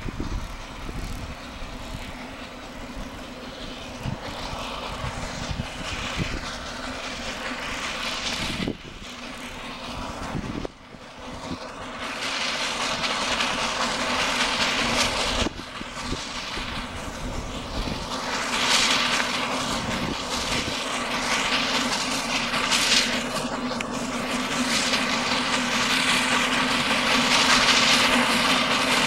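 Small 0-4-0 narrow-gauge steam locomotive hauling open passenger cars, running toward the listener and growing steadily louder as it draws near.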